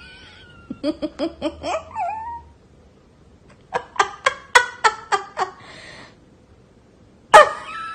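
Boston terrier vocalizing: short, high whines and yips that slide in pitch, a quick run of about seven yips in the middle, and a louder yelp near the end.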